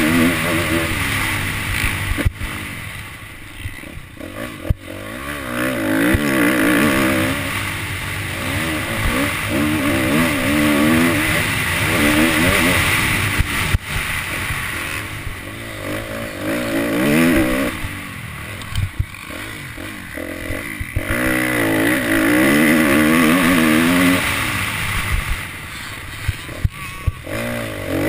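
Motocross dirt bike engine revving hard and backing off again and again through corners and straights, heard from the rider's helmet. A few sharp knocks from the bike over track bumps.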